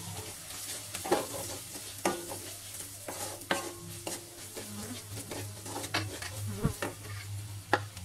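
Wooden spatula stirring onions and dry spice powders in a steel kadhai, scraping and knocking against the pan in a series of sharp clacks, over a light frying sizzle.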